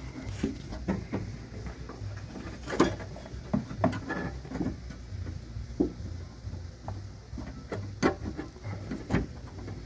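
Scattered small clicks and knocks of a door latch's control cables being worked and snapped into place, plastic and metal parts handled, over a steady low hum.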